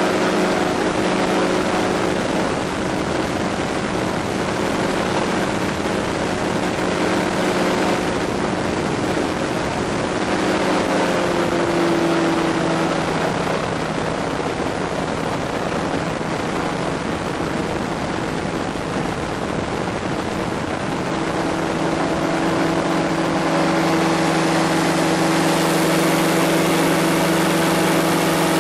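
Powered parachute's engine and propeller running steadily in flight. In the last third the engine note rises and grows louder as it speeds up.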